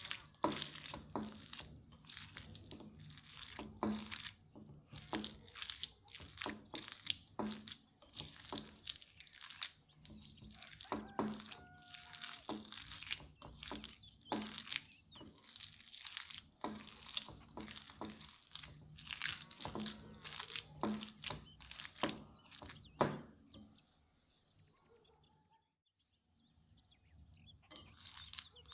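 Silicone spatula mixing raw ground beef in a ceramic bowl: irregular wet squishes and scrapes against the bowl, several a second. It goes quiet about 24 seconds in, and soft squishing starts again near the end.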